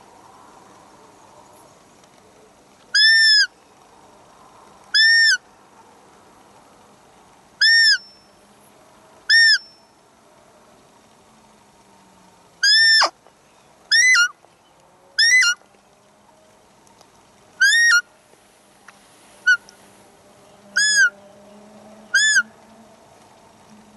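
Roe deer fiep call, the high squeak that draws a roe buck in the rut: about ten short calls, each rising and falling in pitch, at irregular intervals of one to three seconds.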